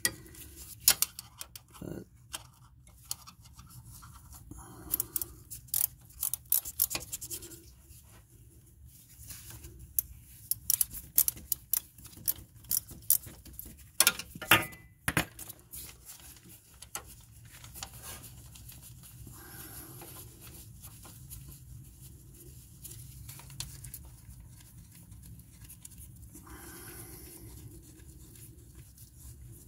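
Hand ratchet clicking and metal tools clinking in short bursts while tightening a transmission mount bolt, busiest in the first half and then quieter.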